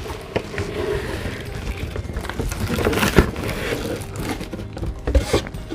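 Packaging being handled during an unboxing: irregular crinkling and rustling of wrapping, with a few sharp clicks and knocks, the loudest about three seconds in and again near the end.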